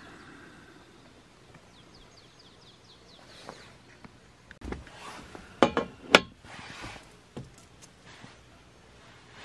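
A few sharp clinks of hard objects knocking together, bunched a little past halfway, the last the loudest, after a faint quick run of ticks.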